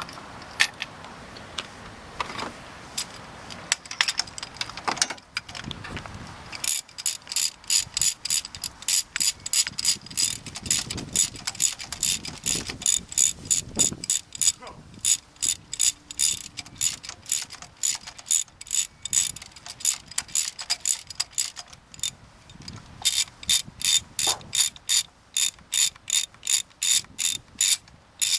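Scattered knocks of tool handling, then from about seven seconds in a socket ratchet clicking rapidly in long runs as spark plugs are turned, with a short pause past twenty seconds in.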